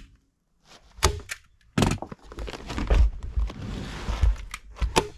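Fiberglass batt insulation rustling as it is pulled out from between wall studs, with several knocks and thunks against the wooden framing, three sharp knocks standing out about one, two and five seconds in.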